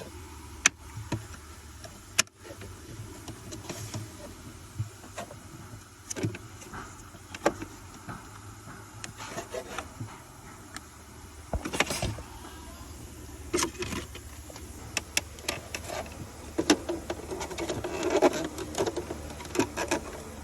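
Scattered short clicks and knocks of hands handling plastic parts, over a steady low hum.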